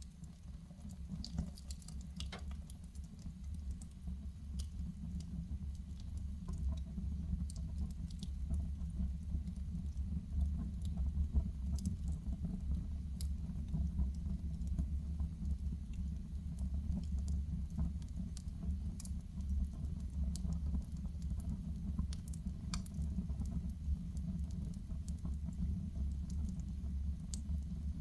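Wood fire burning in a fireplace: scattered crackles and small pops over a steady low rumble. It grows louder over the first few seconds.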